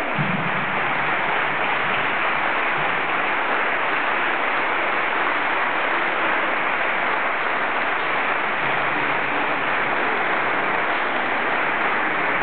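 An audience applauding, steady clapping with no let-up.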